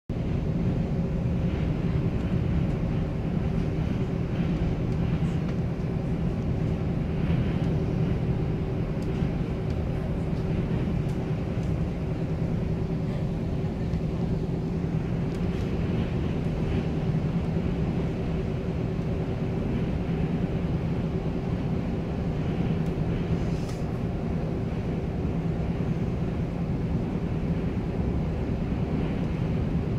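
Steady rumble of a moving passenger train heard from inside the carriage, with a low steady hum under it and a few faint ticks.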